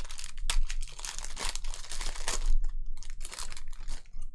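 Shiny foil trading-card pack wrapper being torn open and crumpled by hand, an irregular run of crinkling and crackling.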